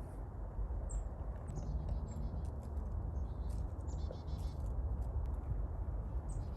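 Small birds chirping in short, high calls, with a quick run of repeated notes about four seconds in, over a steady low rumble.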